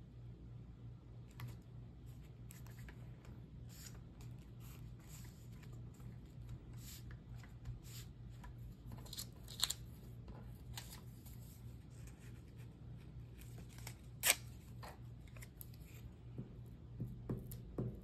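Paper rustling with scattered light taps and clicks as collage paper pieces are handled and pressed down onto a journal page, over a low steady hum. Two sharper clicks stand out, the louder about fourteen seconds in.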